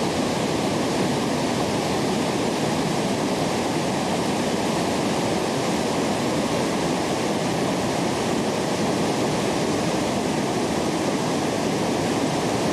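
Waterfall and white-water rapids rushing steadily over rocks, a constant full roar of water.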